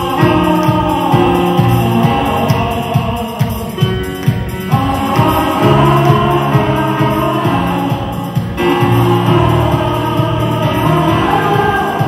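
Music with singing over a steady beat.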